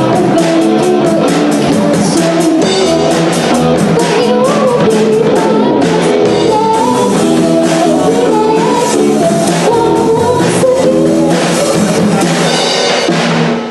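A rock band playing live: drum kit, electric guitar and a singing voice, with the music stopping abruptly near the end.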